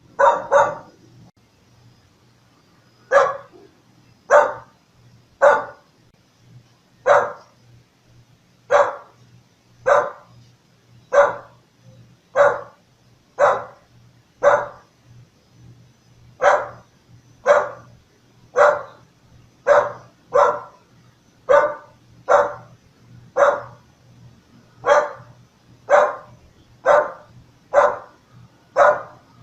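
A dog barking: single loud barks repeated at roughly one per second, about 25 in all, with a quick double bark at the start followed by a pause of about two seconds.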